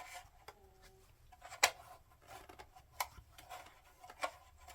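Hard plastic parts of a Shark upright vacuum being handled and fitted back together: a few sharp, separate clicks and knocks, the loudest about one and a half seconds in.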